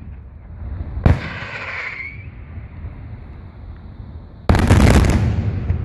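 Daytime aerial fireworks: a single sharp bang about a second in, then a loud, rapid volley of bangs and crackle that starts just past four and a half seconds and dies away.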